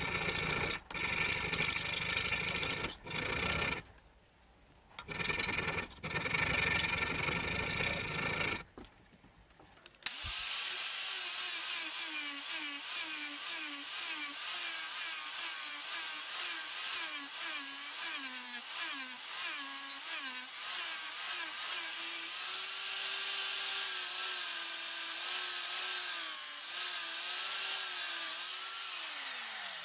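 Angle grinder grinding the steel head of an old hammer clamped in a vise: a loud grinding hiss over a motor whine whose pitch wavers as the disc is pressed on and eased off, then drops as the grinder spins down at the end. Before it, about the first third holds steady machine noise broken by two short gaps.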